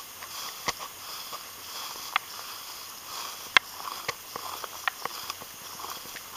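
Footsteps swishing and crunching through dry grass and crop stubble, with scattered sharp snaps, the loudest about three and a half seconds in.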